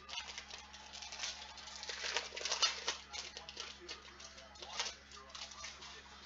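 Trading cards and their pack being handled: a dense, crackly rustle of quick flicks and crinkles, strongest about two to three seconds in and again near five seconds.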